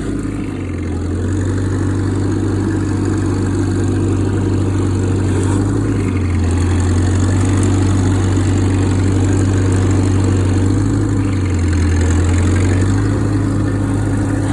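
1972 International Harvester Cub Lo-Boy 154 tractor's four-cylinder gas engine running steadily while pushing snow with a front plow, its low note shifting a few times as the load changes.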